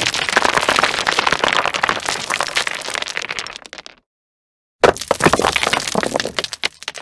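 Falling debris sound effects: a dense clatter of many rock and rubble impacts that thins out and stops about four seconds in. After a short silence, a second fall of debris begins with a heavy hit and trails off.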